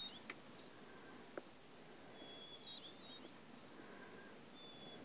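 Faint songbird song: a repeated phrase of one long steady whistle followed by a few quick higher notes, coming about every two and a half seconds over a quiet outdoor background. A single soft click falls about a second and a half in.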